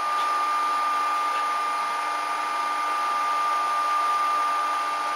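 Steady machine noise with a constant high whine, unchanging throughout.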